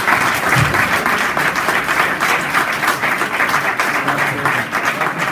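Audience applauding steadily: dense hand clapping from a room full of people.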